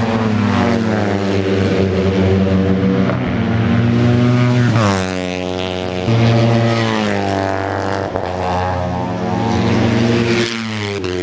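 Racing motorcycle engines passing at speed on the track, their pitch rising and falling through the gears as one machine follows another.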